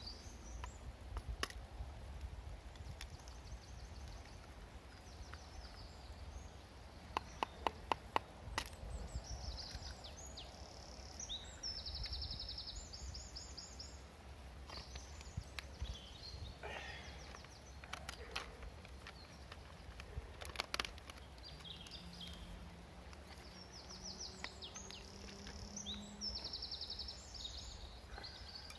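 Woodland birds singing, several high rapid trilled phrases repeated over a steady low background rumble. A quick run of about half a dozen sharp taps comes around seven to eight seconds in and is the loudest sound.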